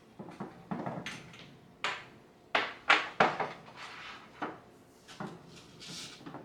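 A series of household knocks and clatters, as of things being handled, set down and shut, loudest in a quick cluster near the middle.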